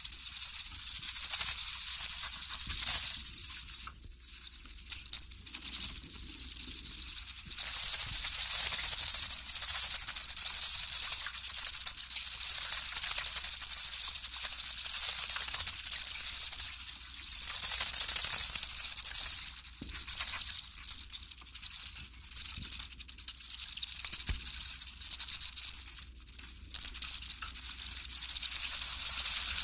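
Bats chittering: a dense, high-pitched rapid chatter of tiny clicks and squeaks that swells and dips in waves.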